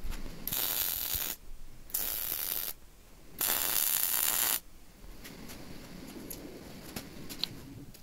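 Wire-feed welder arc crackling and hissing in three short bursts, the last one longest, as welds are laid on recycled horseshoe steel. The welding stops a little past halfway, leaving only faint clicks of handling.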